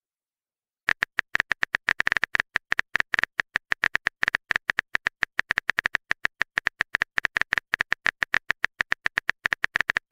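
Smartphone keyboard typing sound effect: rapid, uneven clicks of keys being tapped, several a second, starting about a second in.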